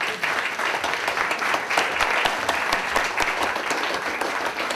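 Audience applauding steadily at the close of a lecture: many pairs of hands clapping at once, dense and even.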